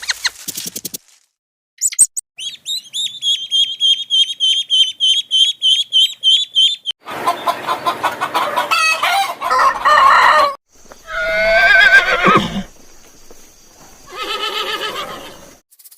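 A string of animal calls one after another. First comes a rapid run of high, even chirps, about four or five a second. Then louder, fuller calls follow, one of them sliding down in pitch at its end, in the manner of a rooster's crow and hen clucking.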